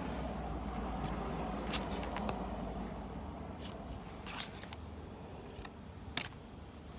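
Trading cards from a booster pack being handled and flicked through, with a few short sharp snaps about two, four and a half and six seconds in, over a low steady hum.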